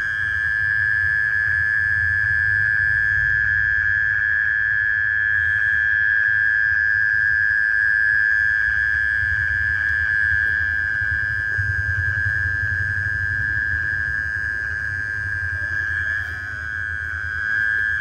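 A night insect calling in one unbroken, steady high-pitched trill, over a low rumble; the call dips briefly near the end.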